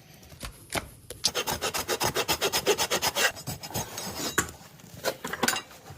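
Farrier's rasp filing a horse's hoof. A fast, even run of scraping strokes starts about a second in and lasts about two seconds, followed by a few slower scrapes and knocks.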